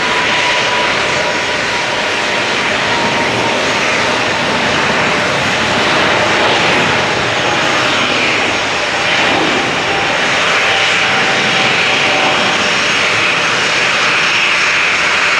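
Boeing 777-200's twin jet engines at takeoff thrust as the airliner accelerates down the runway, lifts off and climbs away: steady, loud jet noise with a faint thin whine over it.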